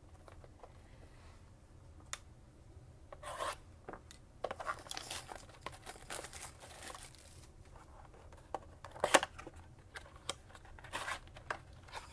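Plastic shrink-wrap being torn off a cardboard blaster box of trading cards and the box opened: irregular crinkling and tearing in bursts, with a sharp snap about nine seconds in.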